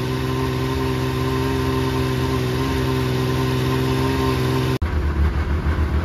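2005 Yamaha Vector snowmobile's four-stroke engine idling steadily, with no clutch rattle or clanking now that the factory repair kit (new buttons and O-rings) is in the primary clutch. Nearly five seconds in the sound cuts abruptly to a deeper, rumblier idle of the same sled, echoing inside an enclosed trailer.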